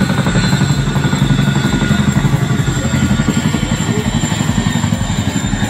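CH-47 Chinook tandem-rotor helicopter flying low past, its rotors beating in a rapid, steady chop.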